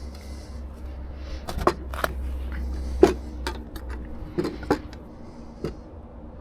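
Hand tools being handled during an oil-filter change on a car, giving about seven sharp clicks and knocks over a few seconds against a steady low hum.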